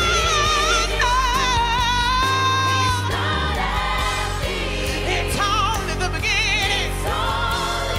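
Gospel choir singing, with long held notes and vibrato over steady low bass notes.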